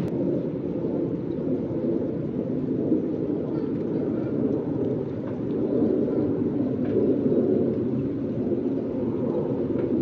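Wind rumbling on the microphone during a snowstorm: a steady low rush that swells and eases slightly.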